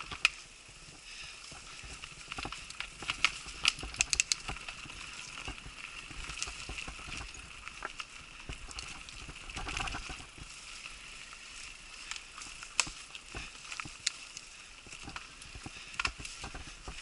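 Mountain bike rolling down a bumpy dirt forest trail, heard from a camera mounted on the rider: a steady hiss of tyres and air with irregular sharp knocks and rattles as the bike hits roots and bumps.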